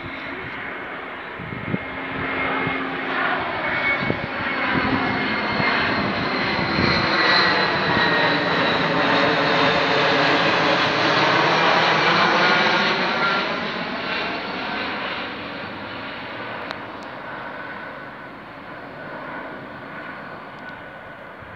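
Airbus A321-200 airliner on landing approach passing low overhead: the whine and rush of its jet engines swell to their loudest about halfway through, then fade as it moves away, the whine sliding slowly down in pitch.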